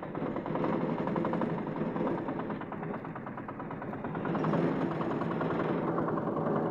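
Single-cylinder diesel engine of an Alfa Plus three-wheeler cargo auto-rickshaw running with a fast, even clatter. It gets a little louder about half a second in and again past the midpoint.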